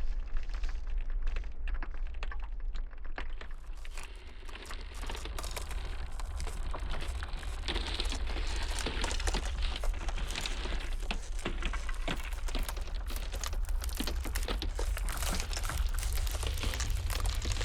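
Glacial ice cracking and crackling in a dense, irregular patter of small snaps, over a steady low rumble of blizzard wind.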